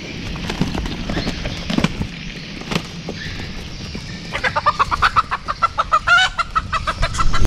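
Bantam fighting cocks sparring: scattered scuffles, then from about four and a half seconds in a rooster clucking in a fast run of short calls for nearly three seconds.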